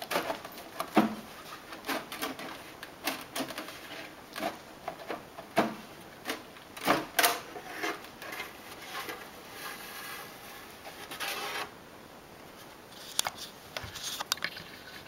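Plastic rear case of a Macintosh Classic being worked loose by hand and pulled off the chassis: a run of sharp clicks and knocks, a longer rubbing noise about ten seconds in, then a few more clicks.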